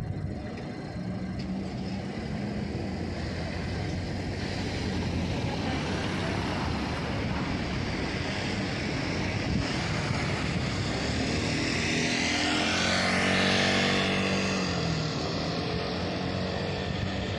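Street traffic: cars driving past on a city road, tyre and engine noise swelling as one passes close about three-quarters of the way through, its pitch dropping as it goes by.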